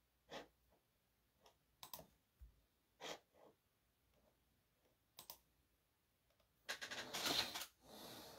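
Scattered faint clicks, about one a second, then a louder, noisier sound lasting about a second near the end.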